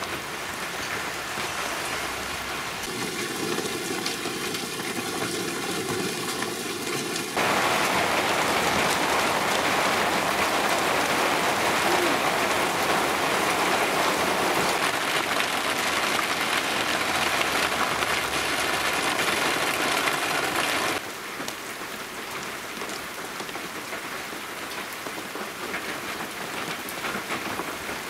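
Large-drop rain shower falling steadily on a yard. It becomes suddenly louder about seven seconds in and drops back just as suddenly about twenty-one seconds in.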